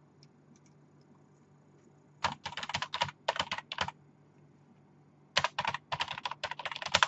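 Fast typing on a computer keyboard in two runs of quick key clicks, the first starting about two seconds in, the second after a short pause, near the end.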